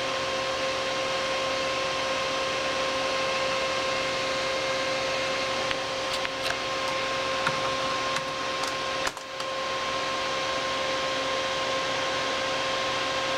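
Desktop PC's cooling fans running with a steady whir and a constant whine, with a few faint clicks partway through.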